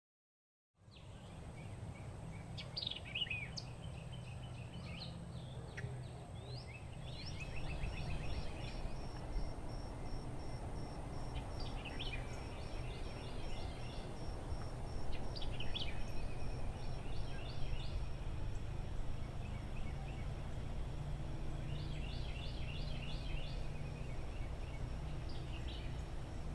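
Birds chirping, with quick trills repeated every few seconds over a steady low rumble, and a thin high pulsing tone underneath. The sound starts about a second in, after a moment of silence.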